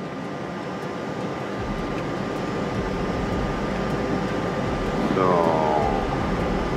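Airbus A320 flight deck noise on approach: a steady rush of airflow and air conditioning that swells gradually. A brief voice with falling pitch comes in about five seconds in.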